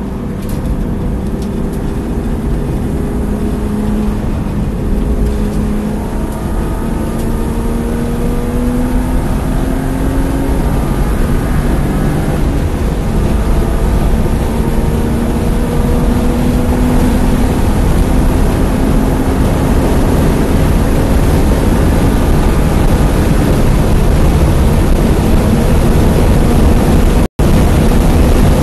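BMW E36 325i's inline-six engine pulling hard under acceleration, its pitch climbing slowly as the car gathers speed, heard from inside the cabin over heavy road and wind noise. The sound cuts out for an instant near the end.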